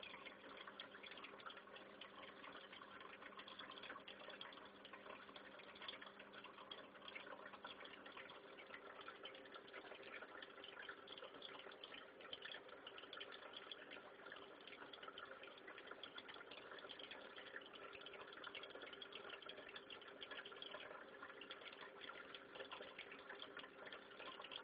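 Faint, steady rush of water in a turtle aquarium, typical of a filter pouring back into the tank, with a low steady hum underneath.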